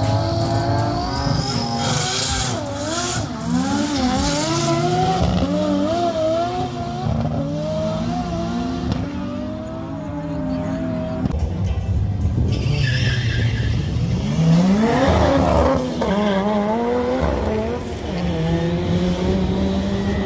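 Turbocharged Toyota AE86 Corolla being driven hard: the engine revs rise and fall and step between gears while the tyres squeal and skid.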